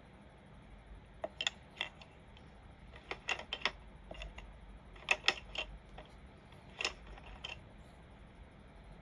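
Computer keyboard keys being tapped in short, irregular clusters of light clicks over a faint room hum, with the tapping stopping about two thirds of the way through.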